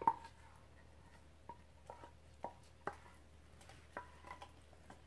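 About eight light, irregular clinks and taps of a utensil and saucepan against a glass mixing bowl as thick cheese sauce is scraped out of the pan.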